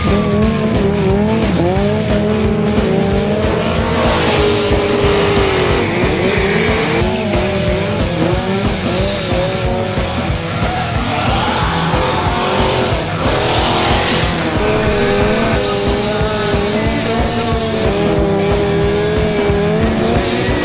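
A car's and a sport motorcycle's engines revving hard with tyres squealing through tight bends, mixed with music that has a steady beat.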